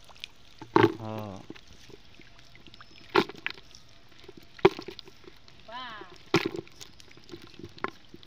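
Small fish being dropped into a plastic bucket with a little water in it: four sharp knocks with small splashes, irregularly a second and a half to two and a half seconds apart.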